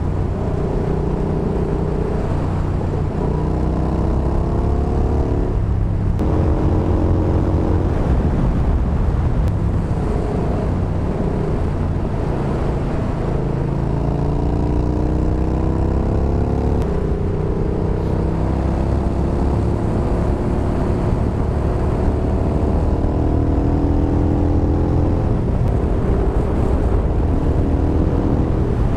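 Yamaha Bolt's air-cooled V-twin engine running under way, its pitch climbing under throttle and dropping back several times, for instance around six and seventeen seconds in, with a steady low rumble of wind on the helmet camera.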